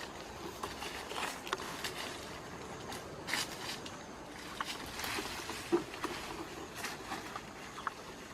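Rustling with many scattered light crackles and clicks, irregular and close by.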